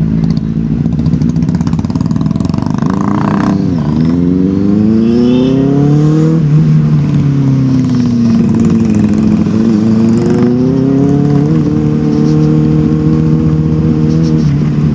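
Benelli TNT 600i motorcycle's inline-four engine running at low speed in traffic. Its pitch rises and falls as the throttle is opened and closed, with a sharp drop in revs about four seconds in, then a climb, a slow fall and a steadier stretch near the end.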